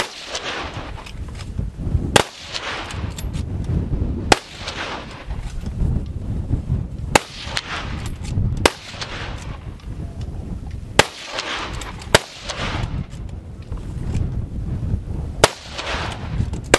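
Rapid fire from several military centrefire rifles along a firing line: about nine sharp shots at irregular gaps of one to three seconds, each followed by a fading echo.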